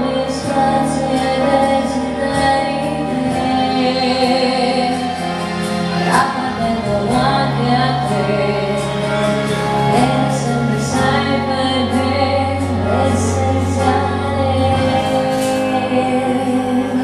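A woman singing an Italian pop song into a handheld microphone over instrumental accompaniment with held bass notes that change every few seconds and light percussion.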